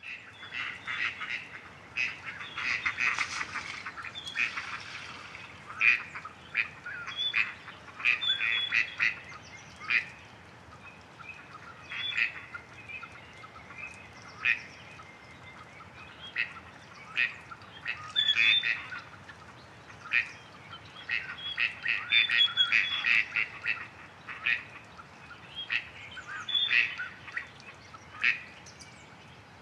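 Gadwalls calling: short nasal quacks and croaks, some single and some in quick runs of several calls.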